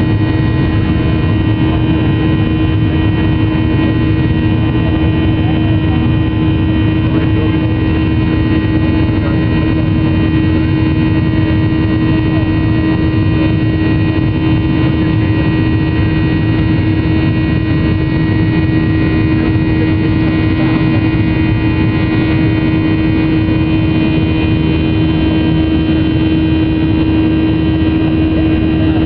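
Boeing 737-800's CFM56-7B turbofan engines at climb power, heard inside the cabin over the wing: a loud, steady drone with a constant low hum and several fainter, higher steady tones.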